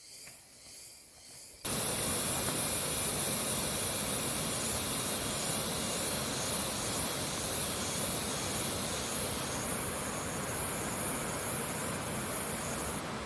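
Steady rush of a waterfall, coming in abruptly about a second and a half in. A high, shrill sound pulses above it about twice a second and stops just before the end.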